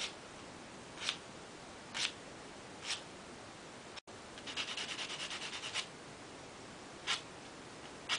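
Nail file rasping across a fingernail: single strokes about once a second, then a quick run of short back-and-forth strokes in the middle, then two more single strokes.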